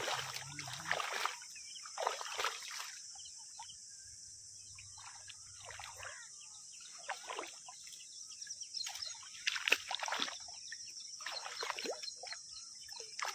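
Shallow water splashing and trickling in irregular bursts as caught fish thrash and are handled, over a steady high hiss.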